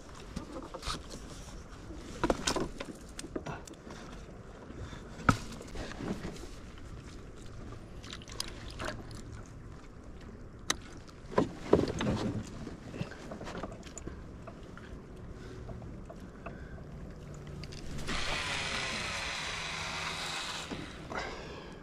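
Scattered knocks and clatter of fishing rods and gear against the canoe, then about eighteen seconds in a fluttering whir lasting some three seconds that stops abruptly, as a baitcasting reel's spool pays out line on a cast.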